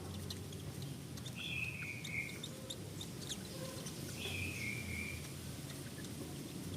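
A bird calling twice, each call about a second long and falling slightly in pitch, with scattered short chirps around it.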